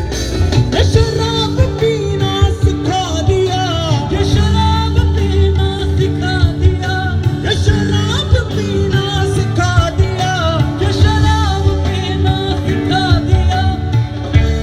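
Punjabi pop song playing with a heavy, steady bass and beat under a wavering lead melody, with no lyrics sung.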